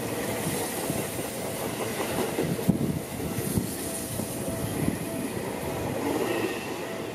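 A Seibu Laview limited express (001 series) passing close by, a steady rush of wheels on the rails with scattered sharp clicks.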